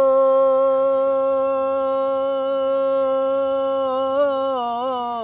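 A man singing a Bengali folk song unaccompanied, holding one long steady note and then wavering through quick ornamental turns near the end.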